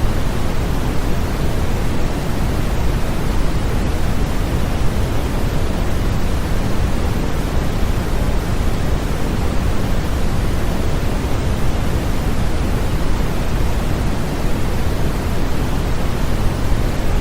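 Continuous white-noise sleep track: an even, unbroken hiss, heavier in the low end than the high, with no change over the whole stretch.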